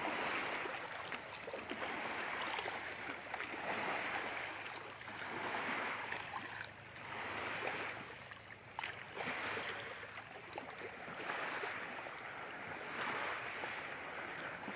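Small waves washing in and drawing back: a hiss that swells and fades about every two seconds.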